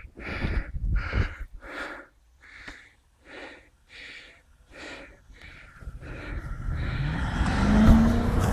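Quick, regular heavy breaths, about one every 0.7 s, from someone trudging through deep snow. From about six seconds in, a Range Rover's engine grows louder as it pushes through the snow, rising in pitch near the end.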